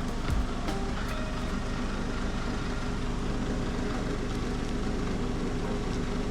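A steady mechanical hum with a few light clicks in the first half second.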